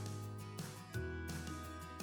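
Outro background music: guitar-led instrumental with a steady bass line, notes changing about once a second.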